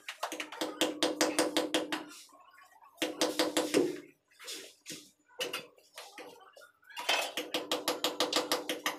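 Hard ceramic tapping and clinking from large floor tiles being handled and set, in three bursts of rapid taps, about ten a second, each with a short ringing tone.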